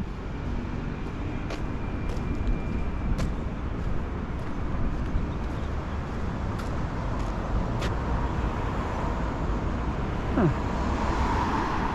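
Road traffic: a steady low rumble of vehicles on the road, with one vehicle growing louder near the end.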